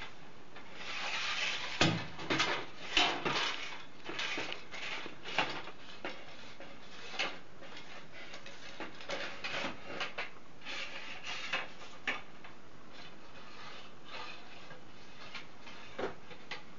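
A fishing rod being handled and rubbed: irregular clusters of scraping and rubbing strokes with sharp clicks over the first twelve seconds or so, then one knock near the end.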